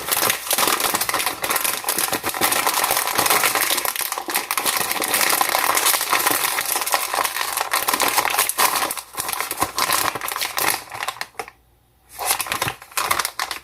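Crinkly PopCorners snack bag being handled and torn open, a dense run of rustling and crackling that stops about 11 seconds in, then a short burst of rustling near the end.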